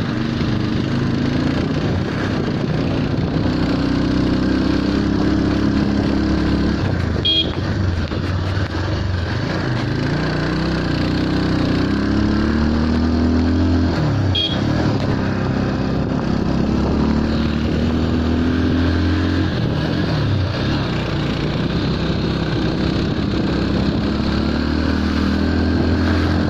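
Motorcycle engine heard from the saddle while riding, its pitch climbing and dropping again several times as the rider opens the throttle and changes gear, over steady road and wind noise. Two very short high chirps cut in, about seven and fourteen seconds in.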